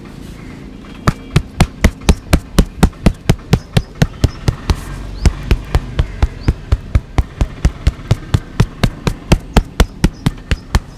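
Percussive massage: hands slapping rhythmically on the body, about four sharp strikes a second, with a brief pause about halfway through.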